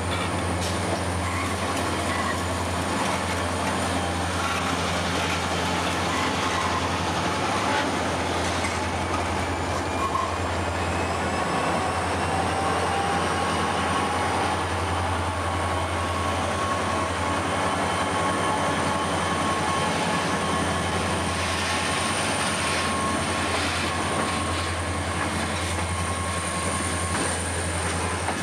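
Three EMD SD40 diesel-electric locomotives with two-stroke V16 engines working as they pull a heavy ore train away, a steady low drone. The ore hopper wagons then roll past on the curve with faint thin wheel squeal.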